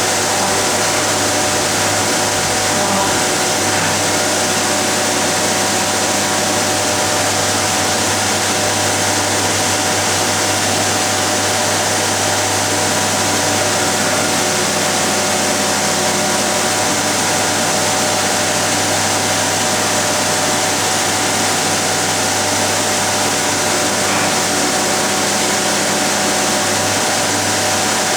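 Bridgeport vertical machining centre running a part program: a steady, unbroken machine noise with a steady whine and a low hum running through it.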